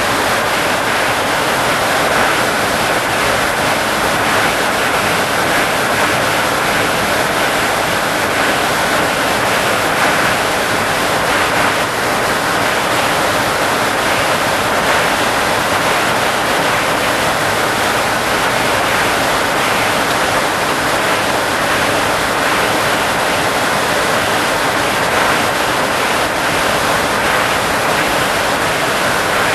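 Boeing 747 flight deck at cruise: the steady, unbroken rush of airflow and cockpit noise.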